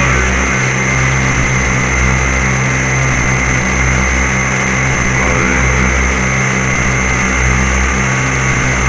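DIY noise synthesizers droning through delay and reverb: a steady, dense low drone under a noisy hiss, with a few high held tones on top.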